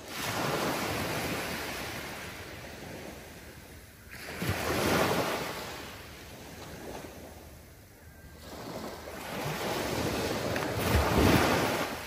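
Small waves breaking and washing up a sandy beach in a gentle surf, the hiss of foam swelling and fading three times, about every four seconds, the last wave the loudest.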